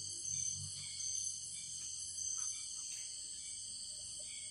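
Steady, high-pitched insect chorus, a continuous shrill trill with a few faint chirps in it.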